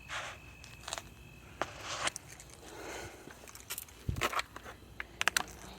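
Hand tools being handled: a scattered series of sharp clicks and taps with short scrapes and rustles, thickest near the end.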